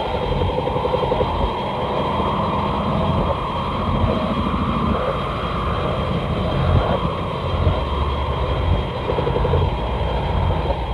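Sound effect of the Showa-era kaiju Hedorah: a continuous rumbling, churning noise with an uneven low throb and a faint steady whine above it, holding at one level without a break.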